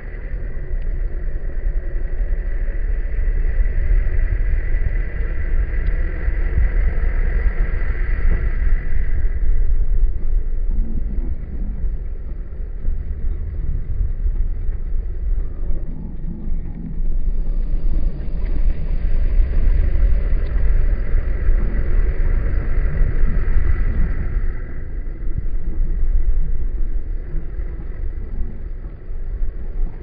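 Jeep Wrangler JK driving, heard from the outside of its hood: a steady low rumble of engine, tyres and wind. A high steady buzz rides over it for the first third and again in the middle.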